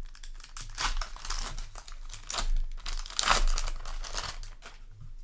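Foil booster pack wrapper crinkling in the hands in irregular rustles, loudest about three seconds in.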